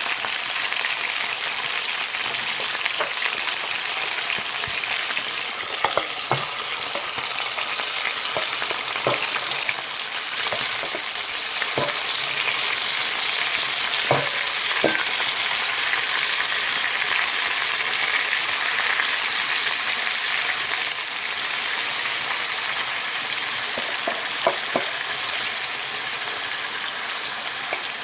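Semi-dried pollock (kodari) sizzling steadily in a hot pan, with a few light knocks scattered through.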